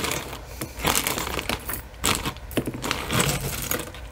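Costume jewelry clinking and clattering as it is handled, an irregular run of small clicks and rattles.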